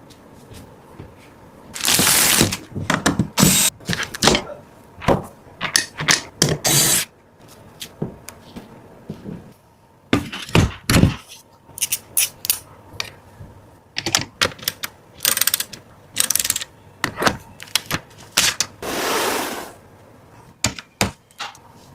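Computer parts being handled and fitted together: irregular clicks, knocks and short scrapes of plastic and metal, with a longer rubbing noise about two seconds in and another near the end.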